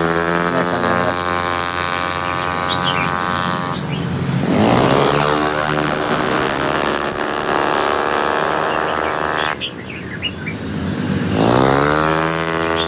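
Racing car engine at full throttle, its pitch climbing steeply as the car accelerates, then holding at high revs. This happens three times: at the start, about four and a half seconds in, and again near the end.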